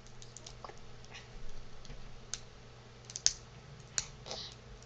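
Plastic packaging handled by hand while someone works at opening it: scattered irregular clicks and short crackles, with the sharpest snaps about three and four seconds in.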